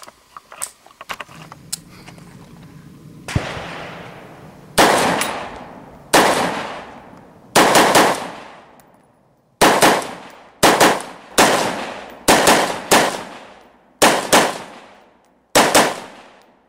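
5.56 short-barrelled AR-15 carbine with an 8.5-inch Noveske barrel and a titanium muzzle brake firing a string of shots: single shots, quick doubles and a triple, each loud crack trailing off in an echo.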